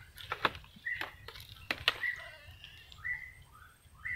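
A bird calling, four short whistled notes about a second apart, over sharp clicks and crackles of a hand working through wet leaf litter and mud; the clicks are the loudest sounds.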